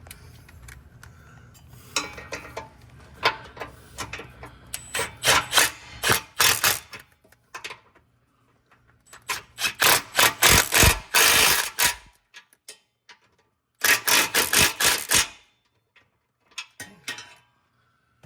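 Hand ratchet clicking in three bursts of rapid strokes, with short pauses between, as bolts on the exhaust hanger brackets are turned.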